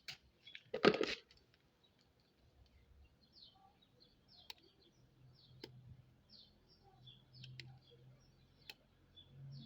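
Boiled chicken feet being cut up by hand: a brief loud noise about a second in, then a few sharp clicks spaced a second or so apart. Birds chirping in the background.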